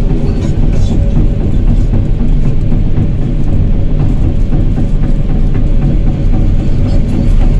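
Excavator's diesel engine running steadily while the machine travels, with its steel crawler tracks clanking and rattling.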